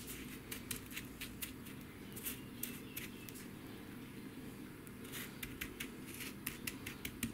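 Faint, irregular gritty scrapes and ticks of sand being spread and tamped by hand around a glass.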